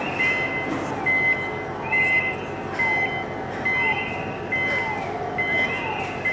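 Electronic warning alarm at the ferry's stern vehicle ramp, beeping evenly a little more than once a second. Each beep is a steady high tone with a falling, sliding note beneath it, over a steady low rumble.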